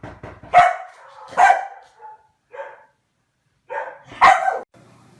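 A dog barking: three loud barks, with a couple of shorter, quieter ones between them.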